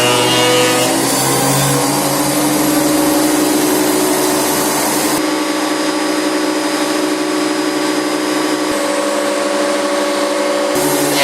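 Makita 2012NB 12-inch thickness planer running, its motor giving a loud, steady whine over a rushing hiss. About five seconds in the hiss abruptly thins and the whine carries on.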